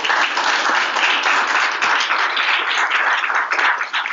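Audience applauding: many hands clapping in a dense, steady crackle.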